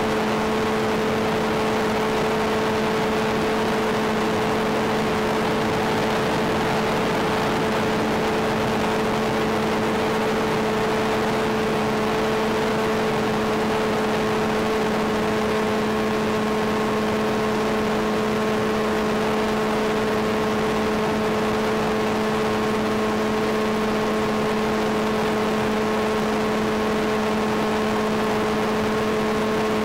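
Sky Surfer pusher glider's HiMax 2000kv brushless motor and APC 5.5x4.5 propeller running at steady cruise throttle, heard as an unchanging whine buried in heavy hiss from the analog FPV video link.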